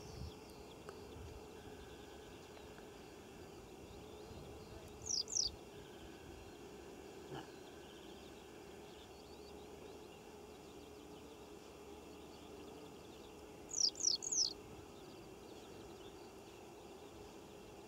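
Bird calls over a steady open-field background: a pair of quick, high, downward-sweeping chirps about five seconds in and a run of three more near fourteen seconds.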